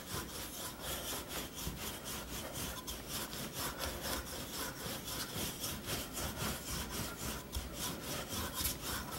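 Wooden rolling pin rolled back and forth over floured puff pastry dough on a wooden board, a steady, evenly repeated rubbing as the laminated dough is rolled out between folds.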